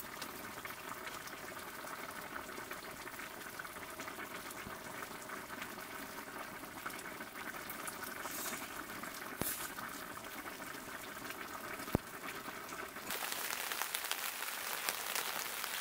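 A pot of broth simmering on a camp stove, bubbling steadily, with two sharp clicks of utensils. About 13 seconds in, a steady hiss of rain on the tent fabric comes up.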